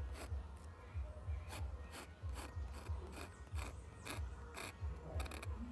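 Metal dip pen nib scratching across textured paper in short hatching strokes, about two a second. A quick flurry of strokes comes near the end.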